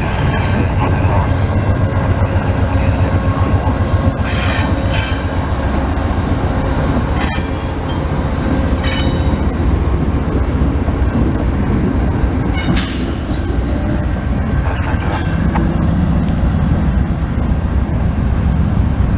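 Amtrak passenger train passing close by: a steady rumble of the cars and a GE Genesis diesel locomotive on the rails, with wheel squeal and a few sharp clicks over rail joints.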